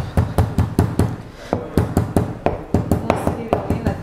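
Metal meat-tenderizer mallet pounding garlic cloves on a plastic cutting board: a rapid run of sharp knocks, about four to five a second, with a short pause about a second and a half in.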